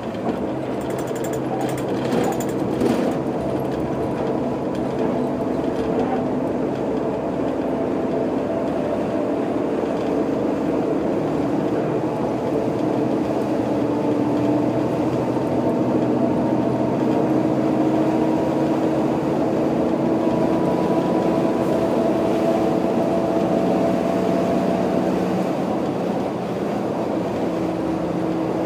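Diesel engine of a Setra S 315 UL bus heard from inside while it drives, with road and rolling noise. The engine note slowly rises through the middle, then dips and changes briefly near the end, as with a manual gear change. A few short clicks or rattles sound in the first few seconds.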